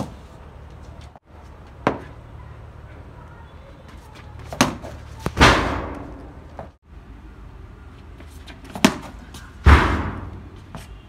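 Cricket bat striking balls hard in a practice net: short, sharp cracks of bat on ball. Twice a louder hit that rings out follows less than a second after the crack.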